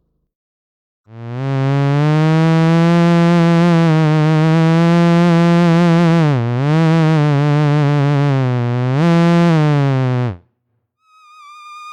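Zoot electronic wind instrument playing a low, buzzy synth tone held for about nine seconds, with a quick dip in pitch partway through and a short upward bend before it cuts off. Near the end a higher, thinner tone begins.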